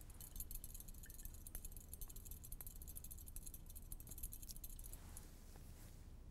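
Faint, rapid rattling and clinking of a glass test tube being shaken in a metal test-tube holder to dissolve a carbonate salt in water. It stops about five seconds in.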